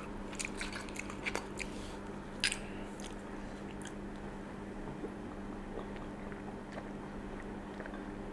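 A person drinking sparkling strawberry juice from a small glass bottle: a few small clicks and taps of the bottle in the first few seconds, then faint sips and swallows, over a steady low hum.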